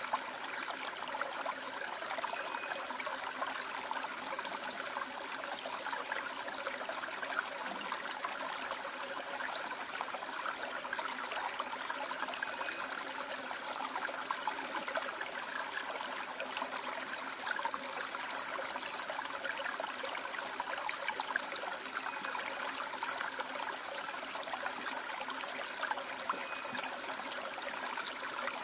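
Stream water flowing steadily over rocks in a gorge, an even rush with many small splashes and trickles throughout.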